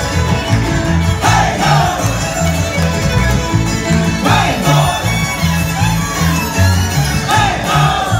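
Live bluegrass string band playing: fiddle over strummed acoustic guitar, banjo and upright bass, with the bass notes moving in a steady beat.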